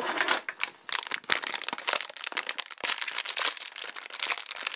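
Thin plastic toy packaging crinkling and crackling as it is handled, in a continuous run of rapid crackles with a few small knocks, while a small toy figure is taken out of its blind-bag container.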